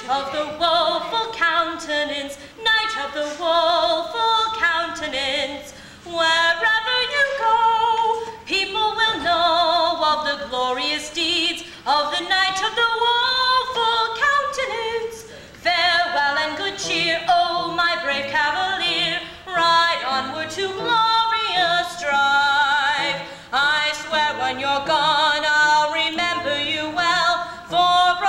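A teenage girl singing a show-tune solo with a strong vibrato, in long phrases with short breaks for breath.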